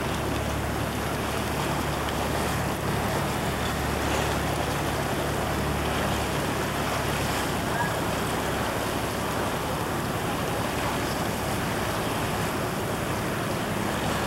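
Tour boat under way: the steady hum of its engine under the rush of water along the hull and wind on the microphone. The low engine hum weakens about halfway through.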